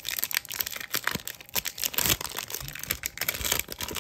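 Wrapper of a Tim Hortons hockey card pack crinkling and tearing as it is ripped open by hand, a dense run of irregular crackles.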